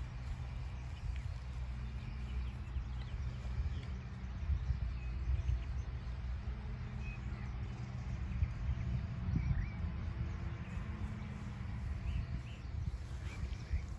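Wind rumbling steadily on the microphone in an open field, with faint bird chirps now and then.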